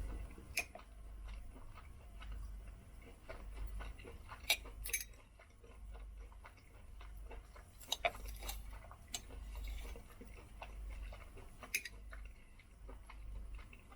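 Scattered light clicks and clinks of cutlery against a plate during eating, over a low steady hum.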